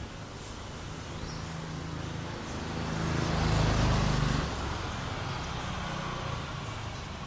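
A motor vehicle passing by, its engine and tyre noise growing louder to a peak a little past the middle and then fading away, over steady street traffic.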